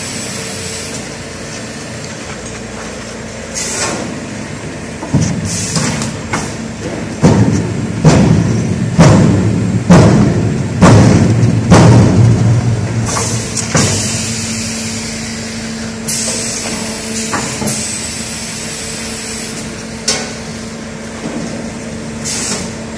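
Refractory-brick screw press striking the mould over and over, about a dozen heavy ringing blows roughly a second apart, loudest in the middle, as it compacts three fire bricks at once. A steady machine hum runs underneath.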